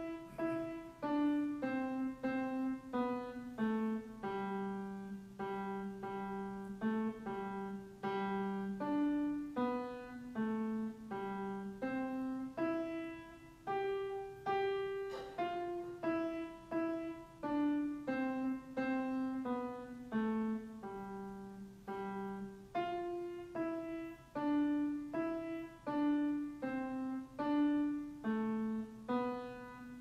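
Piano played slowly one note at a time, a simple melody line of a Christmas carol picked out by a young child, each note dying away before the next.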